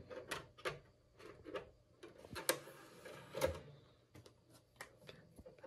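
Faint clicks and knocks of a CD being handled and loaded into a disc player, with a brief rushing whir of about a second and a half near the middle.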